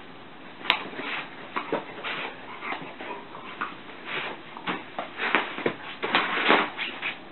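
A dog vocalising in short, irregular bursts while play-fighting with a cat, busier and louder in the second half, with a sharp click about a second in.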